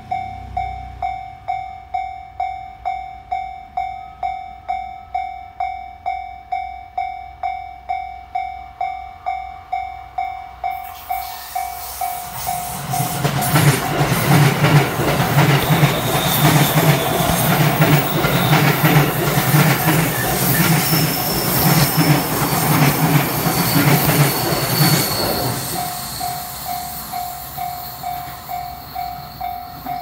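A level-crossing alarm rings a steady electronic bell tone about twice a second. About 12 seconds in it is drowned out by an 11-car JR E217-series Yokosuka Line electric train passing close by, with wheels running over the rails and a low motor hum, for about 14 seconds. After the train passes, the crossing bell is heard again.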